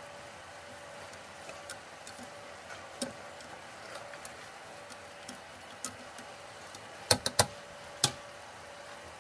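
A spatula scraping and tapping against a stainless steel pot as ground meat and potatoes are stirred, giving scattered light clicks over the steady hum of an induction cooktop. About seven seconds in come four sharp clacks close together, the loudest sounds here.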